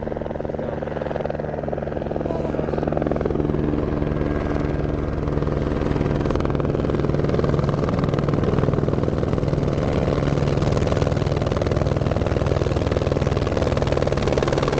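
Helicopter approaching: its fast, even rotor beat over a low steady hum gets louder over the first several seconds, then holds steady.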